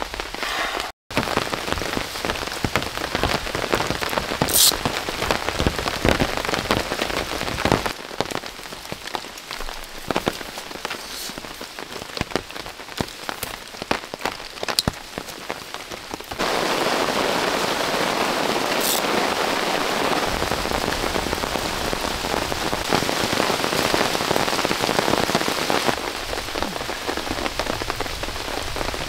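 Rain falling steadily, with many separate drops striking close by, turning to a denser, more even hiss about halfway through.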